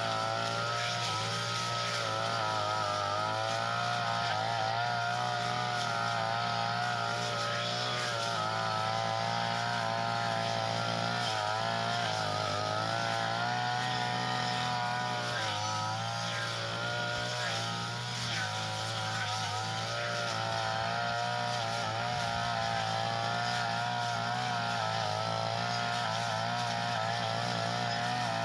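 Small engine of a Tanica grass cutter running steadily at high speed, its pitch wavering slightly now and then.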